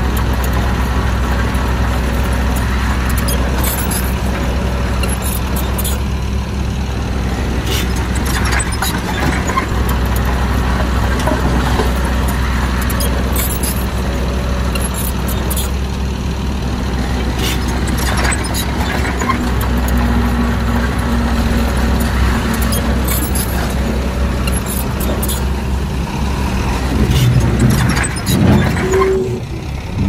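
Heavy diesel earthmoving machinery running steadily, with scattered short metallic knocks and clanks. Near the end it grows louder and shifts in pitch.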